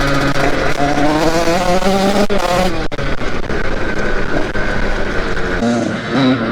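Two-stroke engine of a KTM SX 85 dirt bike under hard throttle, rising in pitch over the first few seconds with brief breaks, then running steadier with a dip near the end. It is reaching high revs freely now that the burnt spark plug that held it back has been replaced.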